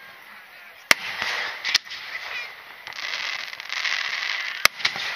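Aerial firework shells of a starmine display bursting: three sharp bangs, about a second in, just after, and near the end, over a steady hiss between them.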